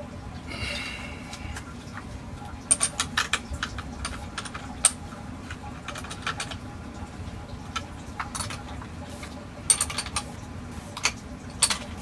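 Battery terminal hardware being tightened by hand with a wrench: scattered sharp metallic clinks and clicks in short clusters as the tool and connector lugs knock against the terminal posts and nuts of a deep-cycle marine battery.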